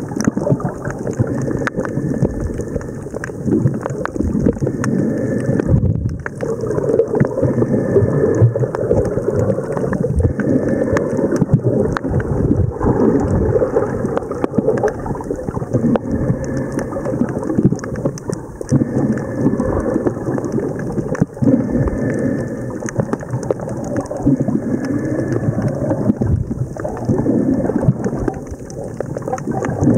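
Muffled rumbling churn of sea water moving around the camera during snorkeling in a swell, scattered with small clicks and crackles.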